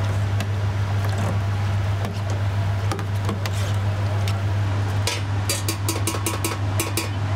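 A steady low mechanical hum with scattered clicks. About five seconds in comes a quick run of about nine sharp taps, roughly four or five a second.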